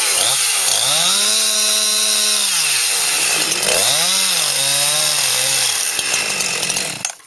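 Chainsaw at full throttle, cutting into a tree trunk: its pitch climbs, holds high, drops, then climbs again and settles lower as the chain bites. It cuts off suddenly near the end.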